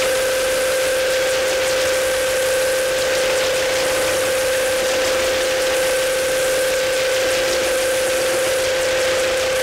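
Noise music made with electronic feedback: a dense, steady hiss under one held feedback tone, with a fainter higher tone above it.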